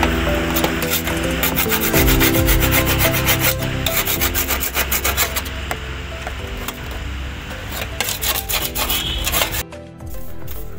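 Hand sanding of the rusty steel floor panel of a Honda Activa scooter: repeated rough rubbing and scraping strokes, stripping rust before repainting. Background music plays under it, and both drop out briefly near the end.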